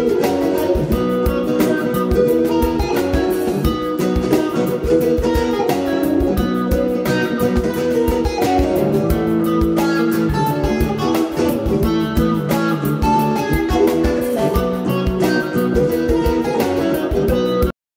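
Background music with a steady beat, cutting off abruptly near the end.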